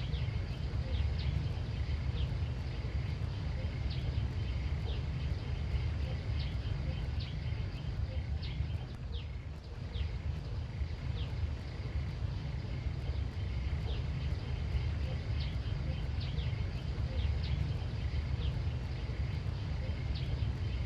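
Outdoor country ambience: a steady low rumble with short, high, falling chirps repeating about once a second, calls of a small animal.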